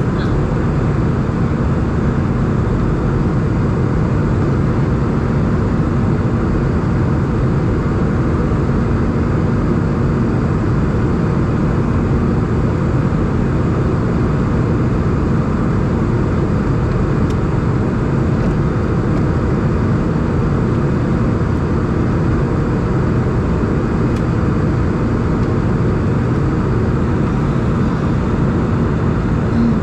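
Steady cabin noise inside an Airbus A320 in flight: engine and airflow noise coming through the fuselage, with a faint steady hum.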